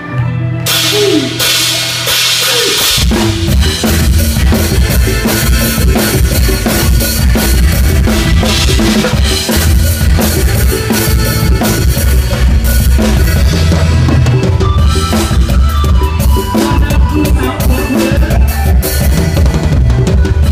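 Drum kit played live with a mor lam sing band: kick drum, snare and cymbals hit hard at close range, with the band's music underneath. It opens with a cymbal wash over a held low note, and about three seconds in the full, dense kick-and-snare beat comes in.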